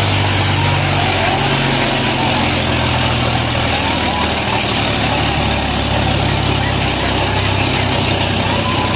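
Heavy diesel tractor engines running steadily, their pitch shifting a little about halfway through, with voices of onlookers calling over them.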